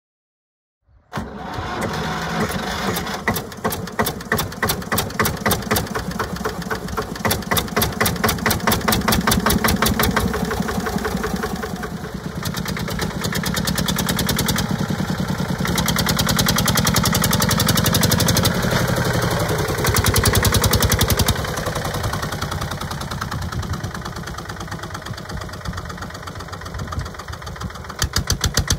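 1953 Porsche A111 tractor's single-cylinder air-cooled diesel starting suddenly about a second in and running with a steady beat of evenly spaced firing pulses. It then pulls the tractor along, growing louder and quieter as it drives past.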